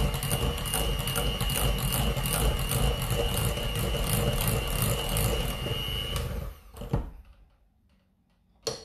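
Electric hand mixer running steadily with a constant high whine as its beaters whip cake batter in a glass bowl, then switched off about six seconds in. A few clicks follow, and sharp knocks near the end.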